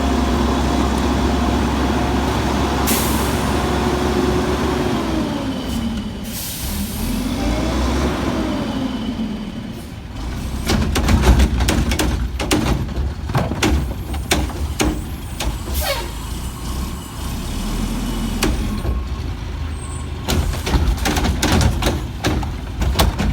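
Old Heil garbage truck: the engine running, easing down in pitch and then revving back up, with a hiss of air brakes. In the second half a run of sharp, irregular clanks and knocks sounds over the engine.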